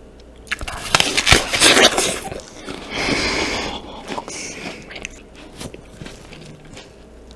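Crisp green apple being bitten and chewed close to the microphone. There are loud crunches starting about half a second in and lasting over a second, then quieter chewing.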